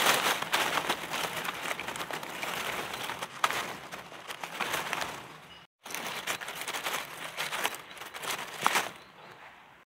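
Dry leaf litter and twigs rustling and crackling as a hand digs through them to pick mushrooms, with two very short gaps.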